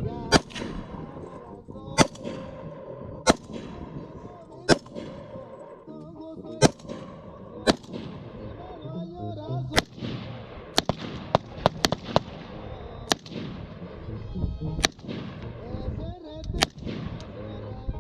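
AR-47, an AR-pattern rifle chambered in 7.62x39, firing about fifteen semi-automatic shots, mostly a second or two apart, with a quicker string of four or five shots about two-thirds of the way through. The rifle keeps cycling without a stoppage.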